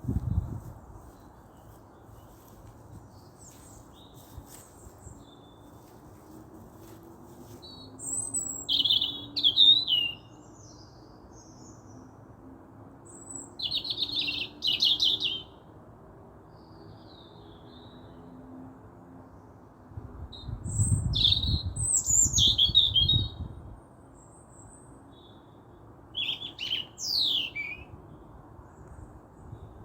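Wild birds calling in short bursts of chirps and quick trills, four times, over a steady low background hiss. A low rumble comes in about twenty seconds in and lasts a few seconds.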